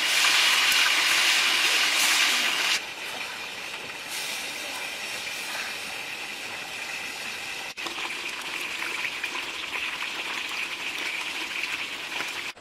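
Fish frying in hot oil in a wok, sizzling. The sizzle is loudest for the first three seconds as a whole fish goes into the oil. It then drops to a softer sizzle and swells again about eight seconds in.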